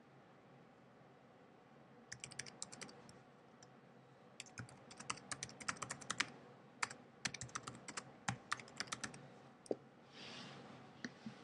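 Typing on a computer keyboard: a short burst of keystrokes, a pause, then a longer, faster run of keystrokes. Near the end, a brief hiss and a couple of single clicks.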